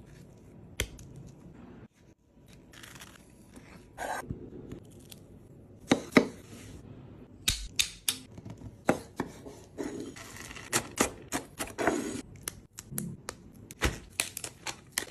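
Salad-making sounds: scattered knocks and clicks of food and utensils being handled, with a few short bursts of rustling.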